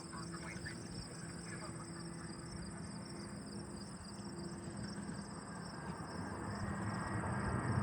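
Insects chirring steadily, with the rumble of an approaching P-8A Poseidon jet growing louder over the last few seconds.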